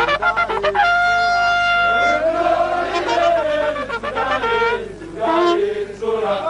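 A horn sounds one long steady note about a second in, then a group of voices sings with wavering pitch.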